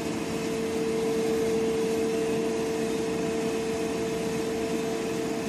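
Steady machine hum from a running three-phase synchronous motor set, with one constant tone over a noise bed and no change in speed.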